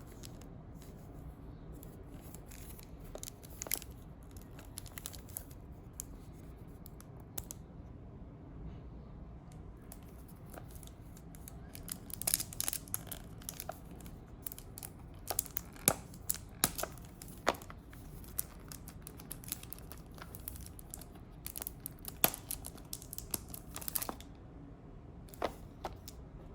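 Packaging being opened by hand: paper and plastic crinkling and tearing, with scattered sharp clicks and scrapes that come thickest about halfway through.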